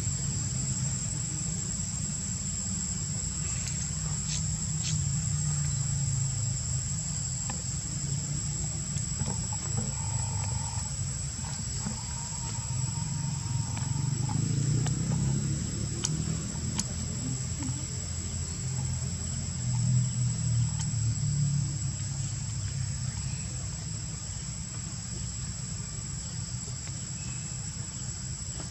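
Steady high-pitched drone of insects, with a low rumble underneath that swells around the middle.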